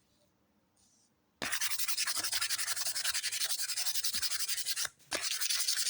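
Sanding on the knife, a steady, fast, even rasp that starts abruptly about a second and a half in, breaks off briefly near the end, then resumes.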